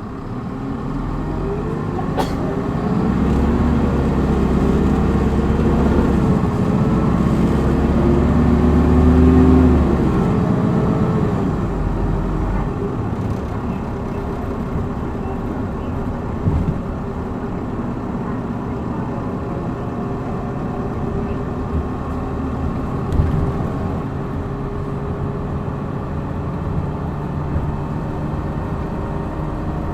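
Hino Blue Ribbon city bus's inline-six diesel engine heard from inside the cabin, accelerating hard in power mode: the engine note climbs and strains for about the first ten seconds, then eases off into steady cruising with a constant drone of engine and road noise. Two short knocks sound in the second half.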